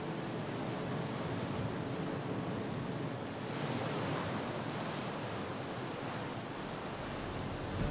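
Ocean surf washing against the shore, a steady rushing noise with some wind, the wash growing brighter about three seconds in.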